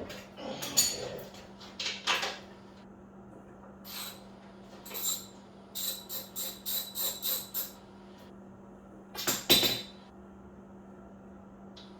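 Metal hand tools clinking and clicking: a socket wrench or ratchet working on a motorcycle's rear shock-absorber mounting nut. The clicks are scattered, with a run of about seven quick clicks in the middle and a louder metal clatter near the end, over a faint steady low hum.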